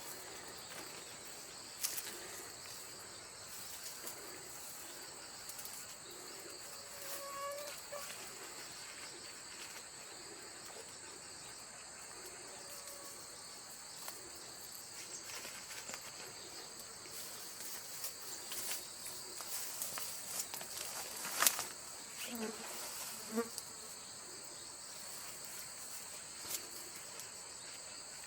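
Chorus of autumn insects, crickets, trilling steadily and high-pitched, with a few sharp clicks and rustles scattered through it, the loudest about 21 seconds in.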